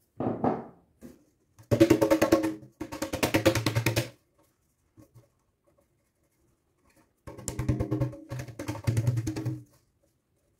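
Metal springform cake tin shaken hard by hand, rattling in quick bursts to spread flour over its buttered base and sides. There are two pairs of rattling bursts, each about a second long.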